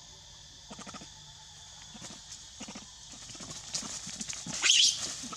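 Young macaques scampering over dry leaf litter, with scattered light rustles and taps. Near the end one of them gives a short, loud, high-pitched squeal.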